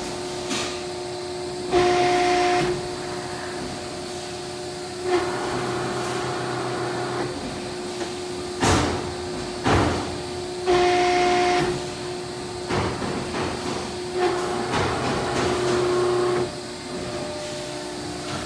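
Cincinnati 230-ton CNC hydraulic press brake running, with a steady hydraulic hum. Several times it gets louder with a stretch of hissing and a higher whine as the ram cycles. Two sharp clunks come about a second apart near the middle.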